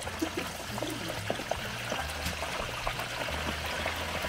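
Pot of lobster pieces at a hard rolling boil: steady bubbling with many small pops.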